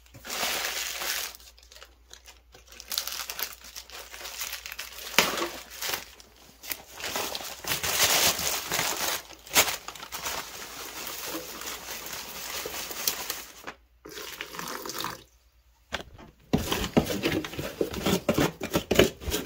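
Plastic bag of refractory cement crinkling and rustling as it is cut open and handled, with dry cement powder going into a plastic tub. The rustling is irregular, with scattered sharp clicks, and gets denser near the end.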